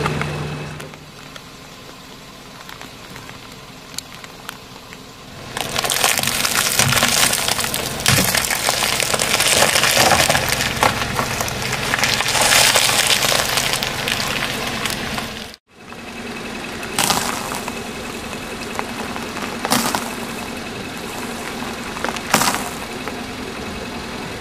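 Brittle objects crackling and crunching as a car tyre rolls over and crushes them: a dense run of crunching for about ten seconds, which cuts off suddenly, then three separate sharp cracks.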